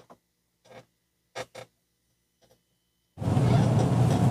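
A few faint, short clicks and taps of a plastic action figure being handled. About three seconds in, a loud, steady hum and rushing noise cuts in suddenly.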